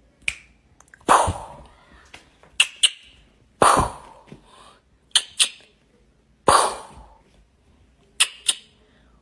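Mock gunshots for a finger-gun game: a sharp bang with a short fading tail about every three seconds, three times, each run in with a pair of quick clicks like a gun being cocked.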